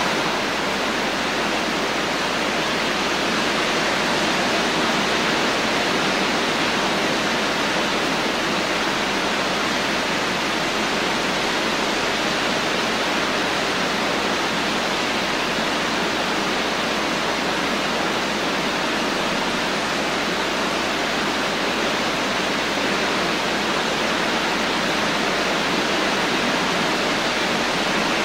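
Steady rain falling, an even, unbroken hiss with no separate drops, thunder or other sounds standing out.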